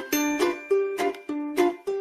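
Background music: a light tune of quick plucked-string notes, about three to four a second.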